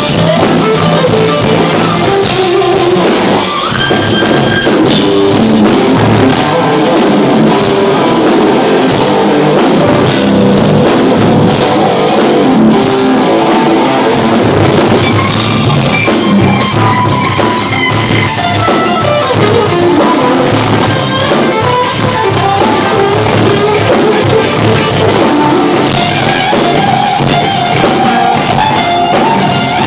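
Live instrumental rock band playing loud: a lead electric guitar carries the melody over rhythm guitar, bass guitar and a drum kit. A long held guitar note comes near the end.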